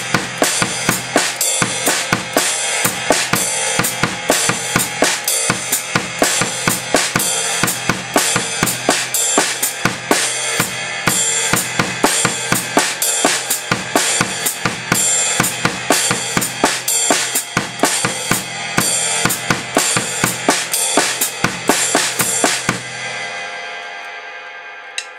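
Drum kit playing a steady independence groove: ride cymbal in quarter notes, and the hi-hat closed by the foot with a heel-toe motion on every eighth-note off-beat, over bass drum and snare. The playing stops about 23 seconds in and the cymbals ring out.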